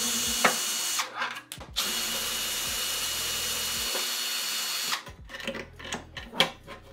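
Greenworks cordless drill-driver backing out two screws. Its motor runs steadily, stops about a second in, then runs again for about three seconds. After that come light knocks and clicks as the sheet-metal disc guard is lifted off.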